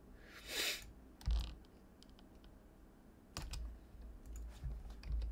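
Computer keyboard keystrokes and mouse clicks, scattered and fairly quiet, with a short rush of noise about half a second in and low thumps from the desk.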